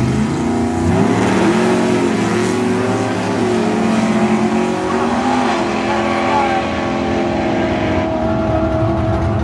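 Two drag-racing cars launching side by side and accelerating hard down the strip, their engines revving up through the gears with stepped rises in pitch.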